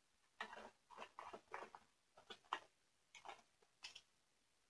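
Faint, irregular clicks, taps and light rattles of small objects being handled off to the side of the workbench, about a dozen in a few seconds.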